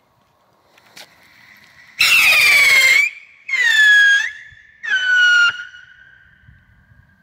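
Small three-stage whistling rocket (Triller-Rakete) climbing on its silver whistle. It gives three loud whistles, each under a second long and sliding down a little in pitch, with short gaps between them, each stage lower than the last. A faint click comes about a second in.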